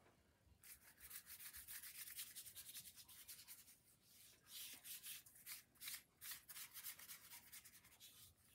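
Paintbrush bristles brushing copper metallic watercolor onto paper-covered board, a run of faint, quick scratchy strokes starting about half a second in. The paint is drying fast on the paper, so the brush drags rather than glides.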